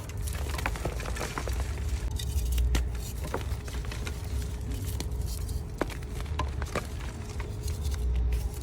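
Reformed gym chalk blocks being crushed close to the microphone: a run of crisp, crunchy crackles and snaps over a low, uneven rumble.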